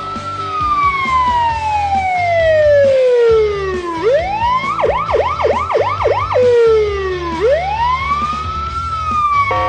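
Patlite electronic siren amplifier sounding through its speaker: a slow wail that falls steadily over about four seconds, then a quick run of fast up-and-down yelp sweeps, about four a second, then another slow rise and fall.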